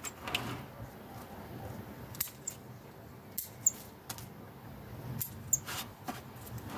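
Bonsai trimming shears snipping the shoot tips off a Chinese privet bonsai: a series of short, sharp snips at irregular intervals, some in quick pairs.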